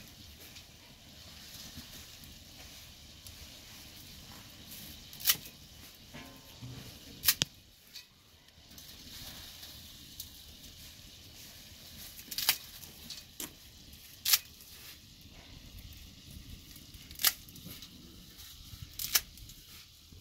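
About six sharp, short snaps a second or more apart, over a faint steady hiss.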